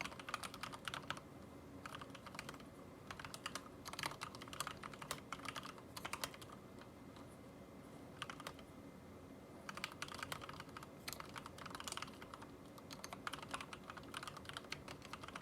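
Typing on a Ninja87 mechanical keyboard with lubed Cherry MX Red linear switches: quick runs of clacking keystrokes, thinning out briefly in the middle before picking up again.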